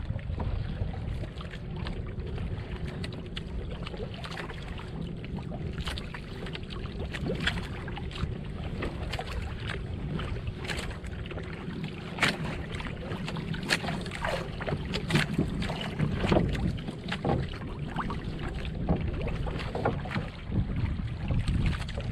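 Wind buffeting the microphone, with water slapping and splashing against the hull of a small outrigger boat in irregular sharp splashes, thickest through the middle of the stretch.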